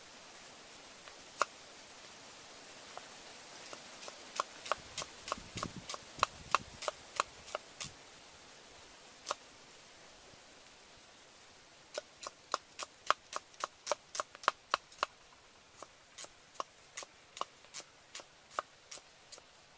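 Cleaver chopping red shallots on a thick wooden chopping block: sharp knocks in short runs of about three a second, with single chops between.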